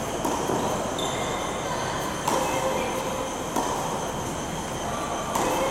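Steady mechanical hum with high whining tones. Over it, short knocks come about every second and a half: tennis balls being struck and bouncing on the court.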